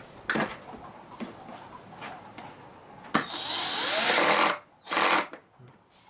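Electric screwdriver driving a screw into the plastic case of a Roland FP30 digital piano, set to a low torque: a few light knocks, then a run of about a second and a half and a short second burst.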